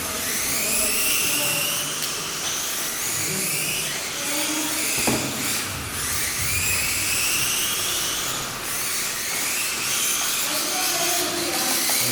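Small electric motors of Mini-Z radio-controlled racing trucks whining, the pitch rising over and over as the cars accelerate out of corners, several at once.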